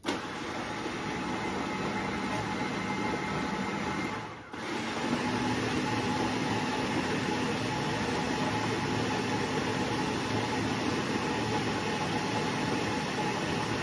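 Electric blender running steadily as it purees a smoothie. It cuts out for a moment about four and a half seconds in, then starts again and runs on.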